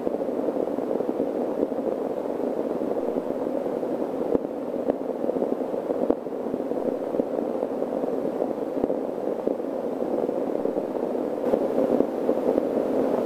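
Steady, muffled static-like rushing noise from videotape playback, with a couple of faint clicks about four and six seconds in.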